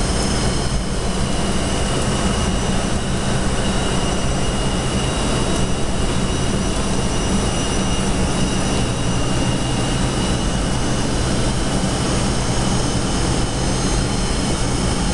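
Steady cockpit noise of a KC-135 tanker in flight: a constant rush of jet engines and airflow with a low hum and a faint, steady high whine.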